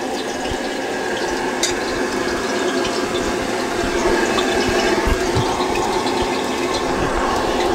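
Gas stall burner under a kadhai, running at full flame with a steady rushing noise, turned up high to heat the oil.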